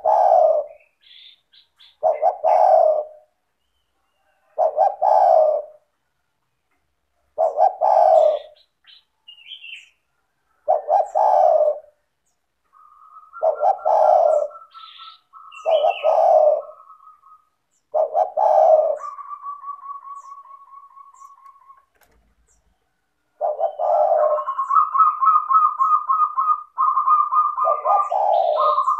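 Spotted doves cooing, a low coo phrase about every two to three seconds, about ten in all. From about halfway through, another bird's fast trilling whistle runs alongside, longest near the end, with faint high chirps.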